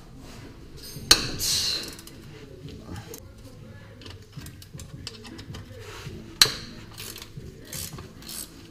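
Hand socket ratchet clicking as bell-housing bolts are backed out of a transmission, in short runs of small clicks, with two sharp metal clinks, about a second in and again past six seconds.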